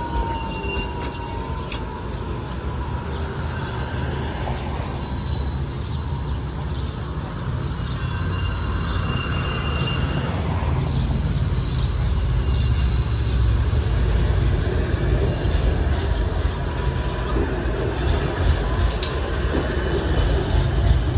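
TTC streetcar running on its rails with a steady low rumble. High, thin wheel squeals come and go and are strongest in the last third, as the sound grows a little louder.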